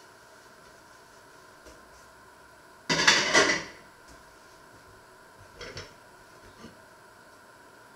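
A loud, brief clatter about three seconds in, then two lighter knocks of china plates being set onto a stack on a wooden table.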